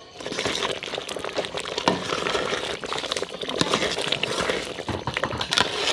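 Thick toasted-rice stew bubbling in a pot over a wood fire: a dense, steady run of small pops and crackles.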